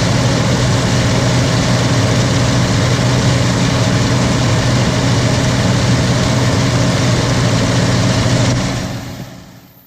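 Farm tractor engine running steadily at a constant speed while driving a round baler as it ties off a bale; the sound fades away near the end.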